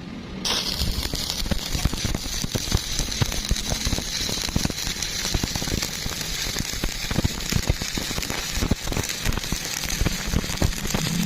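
Stick-welding arc struck about half a second in, then crackling steadily with many sharp pops as the electrode burns.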